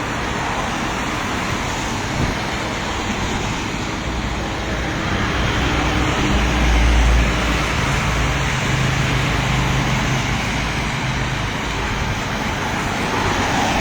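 Road traffic on rain-wet streets: a steady hiss of tyres and water, with a vehicle's engine passing close about six to seven seconds in and its low hum carrying on for a few seconds after.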